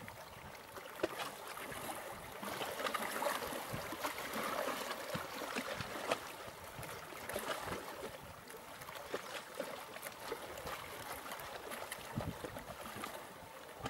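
Small sea waves lapping and splashing against shoreline rocks: a continuous wash broken by many small splashes and trickles, swelling for a few seconds near the start.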